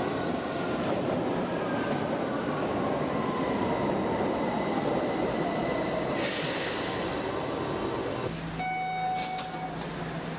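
Subway train running and slowing, its whine falling steadily in pitch, with a burst of hiss about six seconds in. Near the end it gives way abruptly to a quieter, steady hum.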